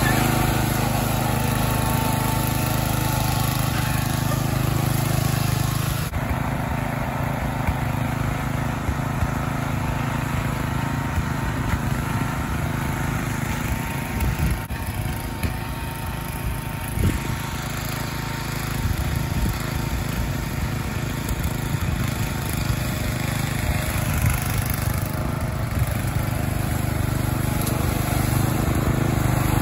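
Ariens riding mower's engine running steadily as the mower is driven over leaf litter.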